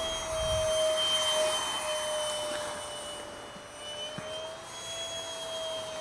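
TechOne Neptune flying wing's 64 mm electric ducted fan whining steadily in flight, its pitch wandering slightly up and down. A rush of air sits under the tone, strongest in the first couple of seconds.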